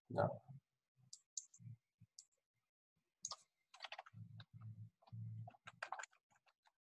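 Computer keyboard keystrokes, irregular clicks in short runs as a search term is deleted and retyped, the loudest cluster just after the start.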